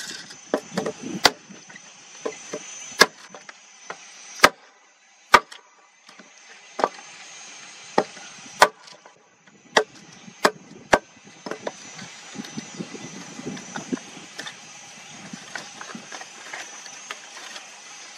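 Axe chopping wood: about a dozen sharp, irregularly spaced blows, followed in the second half by lighter, quicker knocks.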